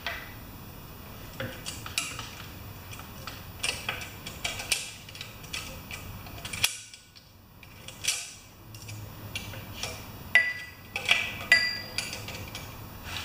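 Small metal parts and hand tools clicking and clinking against a small Briggs & Stratton lawnmower engine as it is taken apart by hand, in irregular scattered taps, with a few sharper, briefly ringing clinks about ten seconds in.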